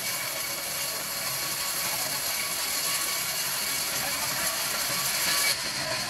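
Large bandsaw mill blade sawing lengthwise through a palm log, a steady high hiss of cutting. The sound swells and then drops off suddenly about five and a half seconds in, as the cut ends.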